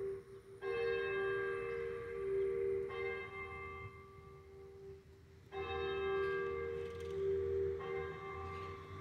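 Church bells ringing in a brick bell tower: four strokes about two and a half seconds apart, each one ringing on with a rich, steady hum until the next.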